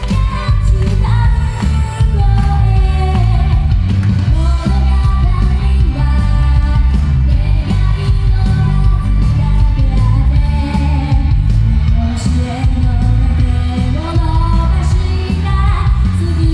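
A woman singing a Japanese-language pop song live into a handheld microphone over loud pop accompaniment with heavy bass, in a large hall.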